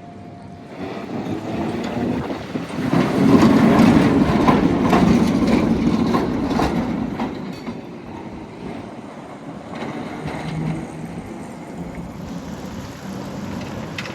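Heritage tram running on its rails. It grows louder about a second in and is loudest for a few seconds with a low rumble and a run of sharp clicks and clatters, then dies back to a steadier, quieter running noise.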